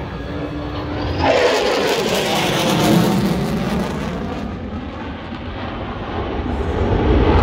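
Roar of an F-35 Lightning II's single F135 afterburning turbofan as the jet flies past. About a second in the noise swells, with a pitch that drops as the jet goes by, then eases and builds again near the end.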